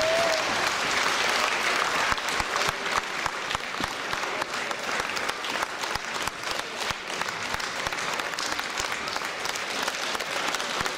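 An audience applauding, many hands clapping in a dense, steady patter that eases off slightly about two seconds in.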